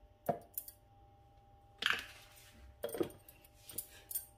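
About six short, light clinks and knocks, as a small glass bowl taps against a stainless-steel mixer-grinder jar and the jar's lid is fitted on near the end.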